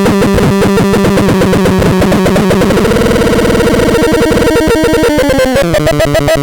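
Torturon C 20 making harsh electronic noise: a fast stuttering pulse over held droning tones. Partway through, the pitch slides upward, and near the end it jumps to a new, higher pulsing pattern.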